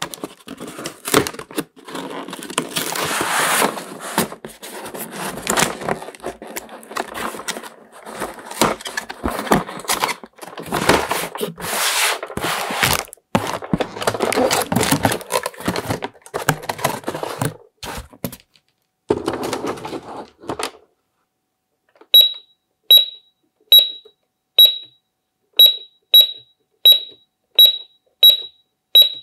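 Cardboard toy packaging being handled, with scraping, rustling and clicks as the box is opened. Then a Peppa Pig toy supermarket cash register's keypad beeping, one short high beep per key press, about once a second.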